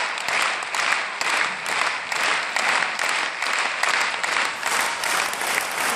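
Arena crowd clapping together in a steady rhythm, about two claps a second.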